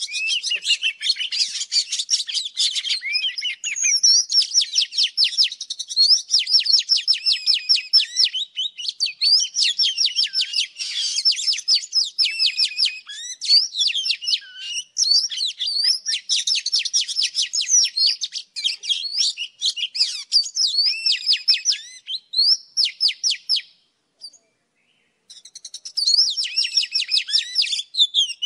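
Oriental magpie-robin singing: a fast, continuous run of high whistled and chattering notes, breaking off for about a second and a half near the end before starting again.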